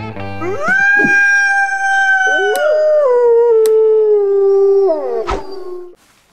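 Wolves howling: a long howl rises to a high held note, and a lower howl joins about two seconds in and sinks slowly before stopping. Two sharp clicks sound over the howling.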